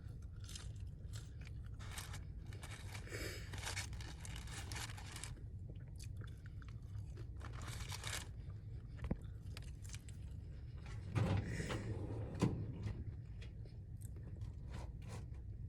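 Close-miked chewing and crunching of Popeyes fast food, with irregular crisp crunches and a few louder bites.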